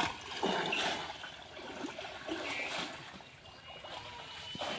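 Pond water sloshing and splashing around a person's legs as he wades through it, in irregular surges that are loudest in the first second and again near the end.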